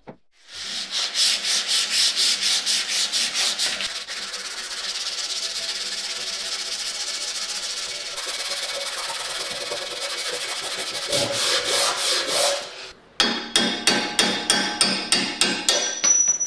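Abrasive rubbing, like sanding a bike part by hand: quick back-and-forth strokes, about four a second, settling into a steady rub. About thirteen seconds in it stops, and background music with a percussive beat starts.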